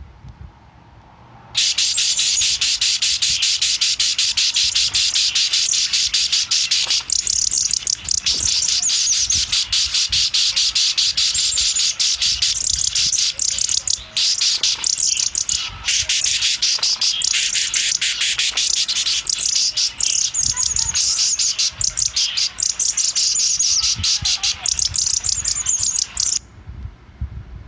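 Baby bird chirping loudly and rapidly, a dense run of high chirps that starts suddenly about a second and a half in and cuts off abruptly near the end.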